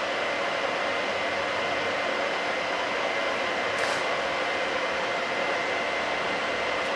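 Steady whirring machine noise with a faint high whine held throughout, and a brief high hiss about four seconds in.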